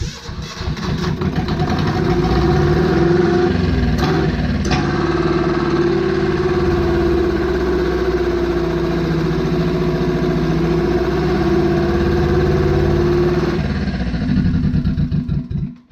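Two-cylinder Perkins diesel engine starting and running away: it climbs within about two seconds to a loud, steady over-speed and holds there, then drops off and stops just before the end. The owner takes the runaway for a sign of a pump problem.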